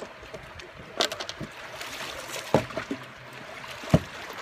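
River water flowing steadily, with three short sharp knocks spread through it, the last the loudest.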